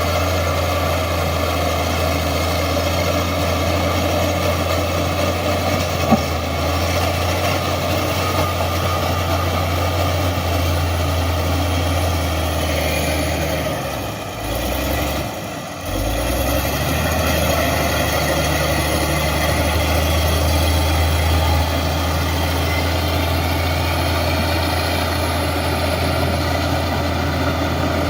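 Heavy diesel engine of earthmoving machinery running steadily with a deep hum. It dips briefly about halfway through, then picks back up.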